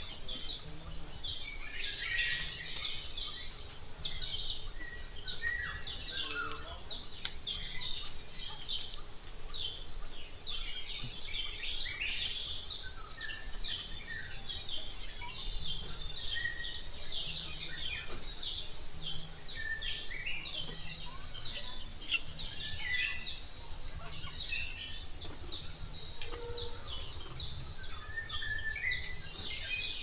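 Nature ambience: a steady, rapidly pulsing insect trill, with birds chirping on and off throughout.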